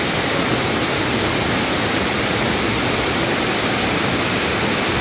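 A waterfall's water crashing down in a steady, loud rush.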